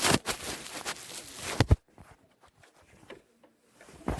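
Handling noise as a camera is knocked about, rustling and scraping, then one heavy thud about a second and a half in as it hits the floor. A few more knocks follow near the end.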